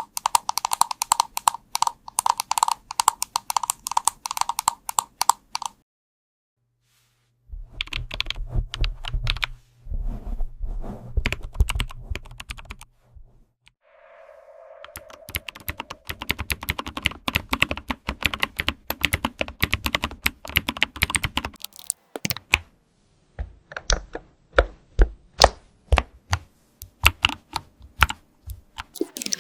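Typing on computer keyboards, dense runs of key clicks in several separate bursts with short pauses between them. The key sound changes from one burst to the next, and a brief hum sounds about halfway through.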